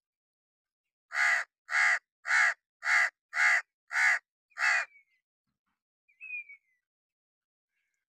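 A crow cawing: a run of seven harsh caws about a second in, evenly spaced at roughly two per second, then it stops.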